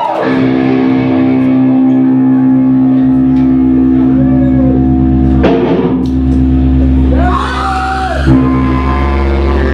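Live electric guitars ringing out long held chords through a loud amplifier, with a bass note coming in about three seconds in and a few pitch slides near the middle and towards the end, as a song starts without drums.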